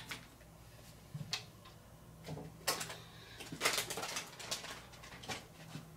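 Scattered light clicks and taps of loose screws and PC case parts being handled, over a faint steady low hum.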